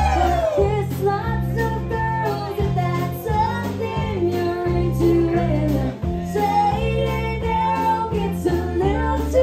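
Live country music: a band with a steady bass line and guitar backing a woman singing.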